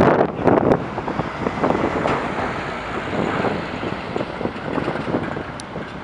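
Jet engines of a Boeing 747-400 freighter at takeoff thrust as it climbs away: a broad, steady rumble. Wind gusts hit the microphone, strongest in the first second.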